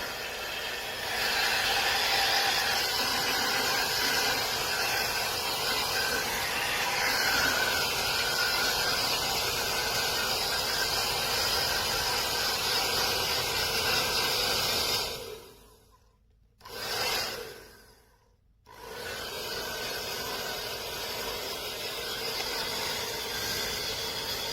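L'ANGE HAIR Soleil hair dryer running, a steady rush of air with a faint motor whine. About fifteen seconds in it is switched off, runs again for about a second, stops, and then comes back on, quieter than before.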